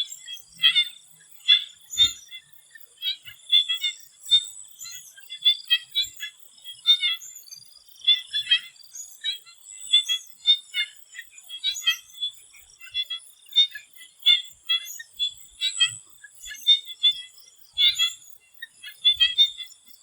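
Swamp frogs calling in short, sharp, repeated notes, one to three a second and overlapping, over a thin steady high-pitched whine.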